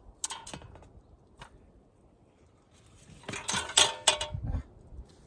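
Clattering and clinking of things being handled: a couple of light knocks early on, then a louder burst of clatter about three seconds in.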